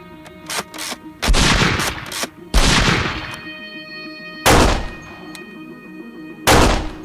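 Four loud gunshot-like bangs, each dying away over about a second, a couple of lighter clicks before the first, over background music with steady held tones.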